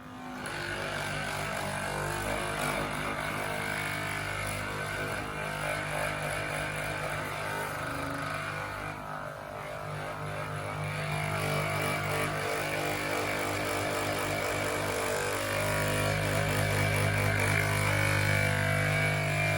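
A steady motor hum holding a fixed pitch, shifting slightly a few times and growing somewhat louder in the second half.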